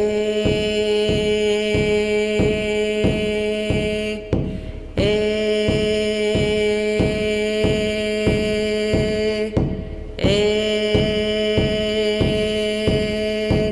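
A woman chanting the vowel 'é' in three long held tones, pausing for breath between them, over a steady beat on a hide frame drum struck about twice a second.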